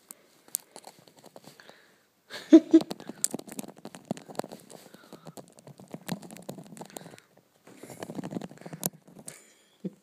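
Budgie clambering over the phone's microphone: its feet, beak and feathers scratch and tap against it in a run of close clicks and crackles, with one brief louder low sound about two and a half seconds in.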